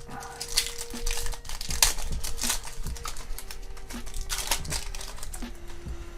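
Yu-Gi-Oh trading cards being handled and flicked one behind another in the hand: a run of crisp, irregular clicks and rustles.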